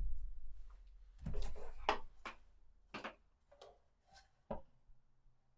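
A string of short clicks and knocks with rustling between them, from audio cables and connectors being handled and plugged in while a DJ setup is wired to a mixer.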